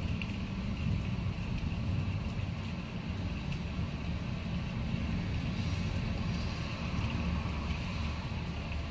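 Steady noise of a night thunderstorm: rain and wind with a low, continuous rumble and a few faint ticks.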